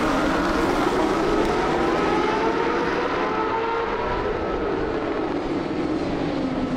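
Superbike race engines at full throttle, several engine notes rising and falling as the pack accelerates and changes gear.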